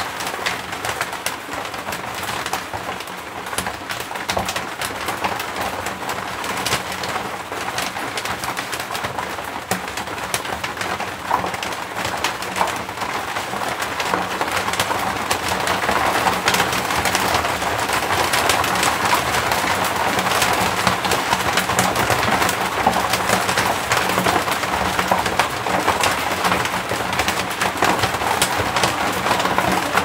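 Rain pattering on an asbestos fibre-cement roof, heard from the room beneath it. The rain grows louder and heavier about halfway through.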